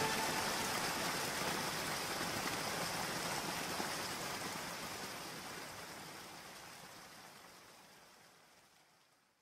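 Steady hiss of falling rain, fading out gradually to silence near the end.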